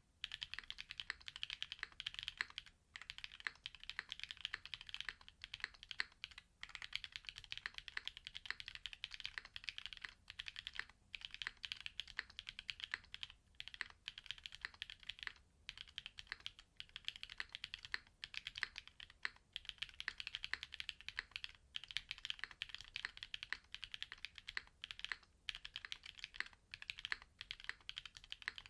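Mechanical keyboard typed on quickly and continuously, with short pauses every few seconds: clacky ALLCAPS prototype long-pole linear switches, their stems lightly lubed and fitted with 63.5 g long springs, in a Ciel60 hotswap board with an FR4 plate and GMK ASCII keycaps.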